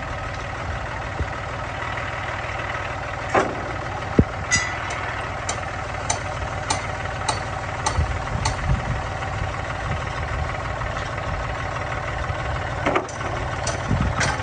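Vehicle engine idling steadily, with scattered sharp clicks and knocks over it.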